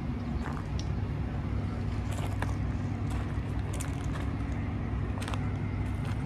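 Steady low rumble of city traffic, with a few scattered faint clicks and ticks over it.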